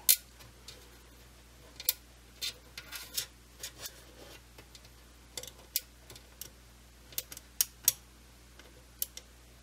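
About a dozen irregular sharp clicks and light taps, the loudest at the very start. They come from a 2.5-inch Samsung 850 EVO SSD being handled against a desktop PC's steel drive cage while it is lined up with a screw hole.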